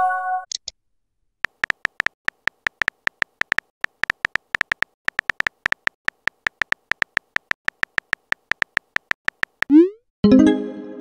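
Simulated phone-keyboard clicks from a texting-story app, tapping rapidly at several a second as a message is typed. A brief chime sounds at the start. Near the end a short rising swoop and another chime mark the message being sent.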